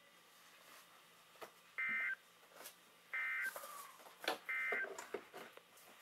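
Midland NOAA weather radio sending the EAS end-of-message code: three short bursts of buzzy two-pitch data tones, about 1.4 seconds apart, marking the end of the severe thunderstorm warning. A few sharp clicks fall between the bursts.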